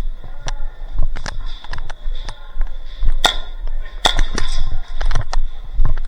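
Airsoft guns firing in an ongoing game: irregular sharp snaps of single shots, several a second at times, the loudest a little past three seconds in and about four seconds in, over a faint steady high tone.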